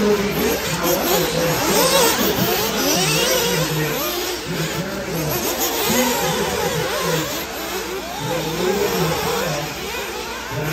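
Several radio-controlled off-road buggies racing at once, their motors constantly rising and falling in pitch as they accelerate and back off through the corners.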